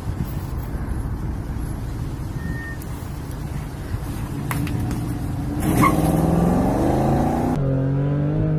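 Street traffic noise with some wind on the microphone, then a car engine revving up, its pitch rising for about two seconds, followed by a steady engine drone.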